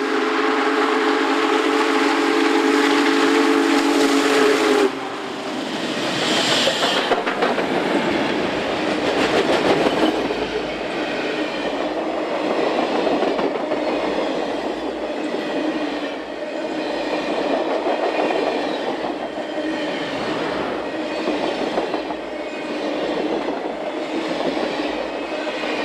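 Union Pacific Big Boy 4014's steam whistle sounding one long blast that cuts off sharply about five seconds in, followed by the locomotive and its train rolling past, wheels clattering over the rail joints.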